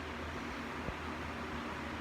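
Steady rushing background noise with a low hum and a single faint tick a little under a second in.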